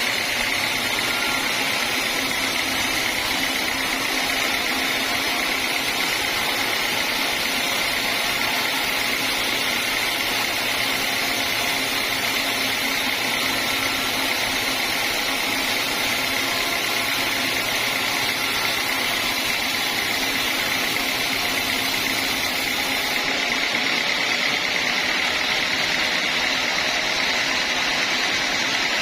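Sawmill band saw running steadily with an even, unbroken machine noise.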